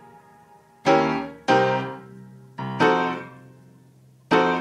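Background piano music: chords struck one after another, each left to ring and fade.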